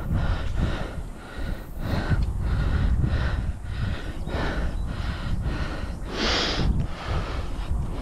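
A man breathing hard and fast from exertion, quick puffs in and out, with wind rumbling on the microphone. One louder rushing burst comes about six seconds in.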